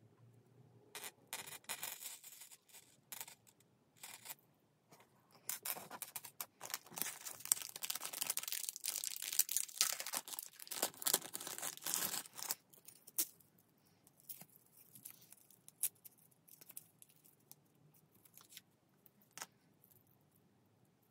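Close rustling and crinkling in irregular bursts for about ten seconds from about a second in, then only a few scattered light clicks and taps.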